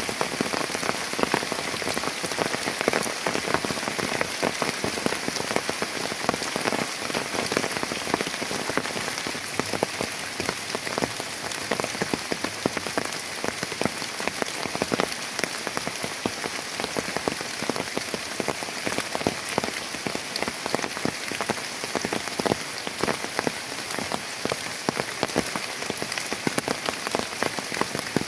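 Heavy rain falling steadily, a dense unbroken stream of close drop impacts striking a surface.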